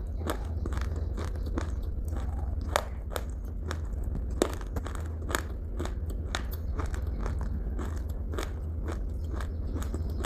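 Crunchy food being bitten and chewed close to the microphone: a run of irregular crisp crackles, a few per second, with two louder crunches about three and four and a half seconds in, over a steady low hum.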